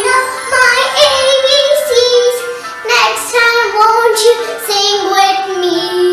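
Children's music: a high, child-like voice singing a melody of held, gliding notes over a backing track.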